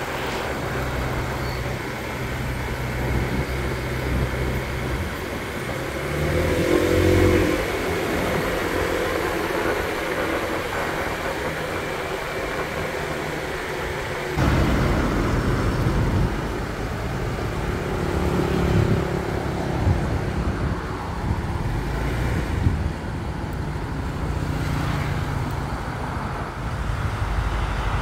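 Engine and road noise from a moving vehicle driving along a road, with passing traffic; the low rumble gets louder about halfway through.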